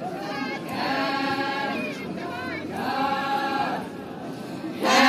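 A line of Naga women in traditional dress singing a folk chant together in unison, in held phrases of about a second each with short pauses between them. A louder phrase begins near the end.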